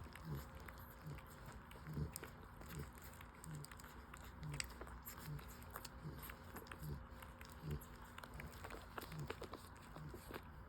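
Newborn French Bulldog puppies nursing: faint suckling and smacking clicks with soft low grunts that repeat about one and a half times a second.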